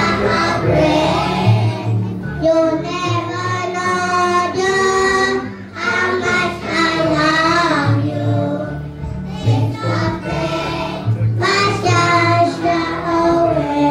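Children singing a song together over a musical backing with a steady bass line.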